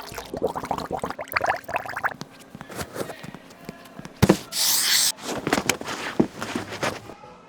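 Car-repair handling noises: irregular clicks and knocks of tools and parts. A sharp knock comes a little past halfway, followed by a short, loud hiss.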